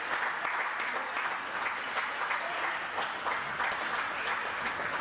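Applause: many hands clapping at a steady level.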